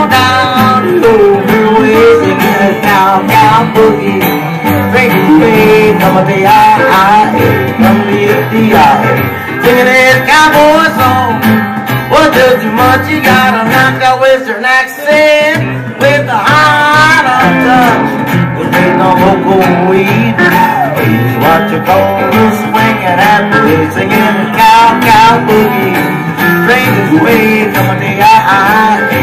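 Live country band playing an upbeat boogie: strummed acoustic guitar, electric guitar and Fender steel guitar, with a man singing at times.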